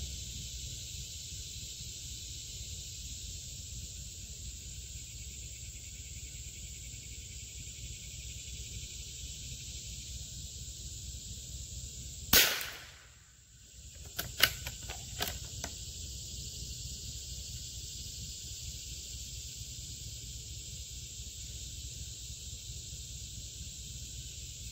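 A single .22 LR shot from a Howa M1100 bolt-action rifle about halfway through, followed about two seconds later by a few quieter metallic clicks as the bolt is worked. A steady chorus of insects runs underneath.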